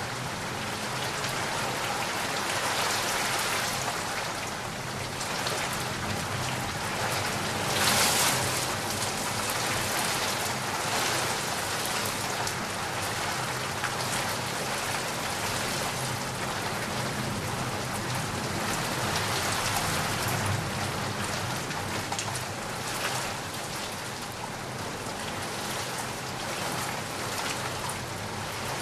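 Heavy rain pouring steadily, a dense hiss of drops on surfaces, swelling briefly louder about eight seconds in.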